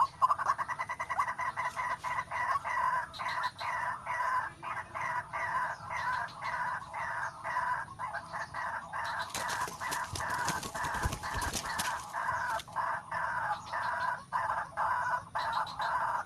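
White-breasted waterhen calling: a long run of rapid, repeated croaking notes. A brief burst of noise comes about ten seconds in.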